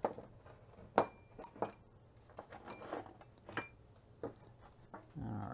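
Hard objects clinking and knocking on a wooden workbench as a copper pipe and tools are set in place. The loudest is a ringing metallic clink about a second in, followed by several lighter knocks and clicks.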